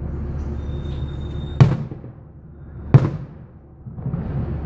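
Aerial fireworks shells bursting: two sharp booms a little over a second apart, each with an echoing tail, over a steady low hum.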